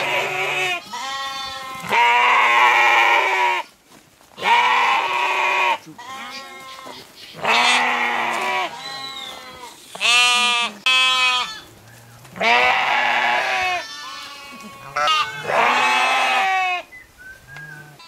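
Sheep bleating over and over: loud, quavering calls of varying pitch, one every second or two.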